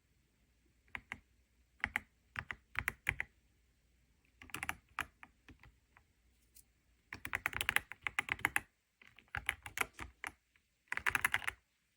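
Typing on a YUNZII X71 68% mechanical keyboard with transparent keycaps: keystroke clicks come in about six short runs separated by brief pauses.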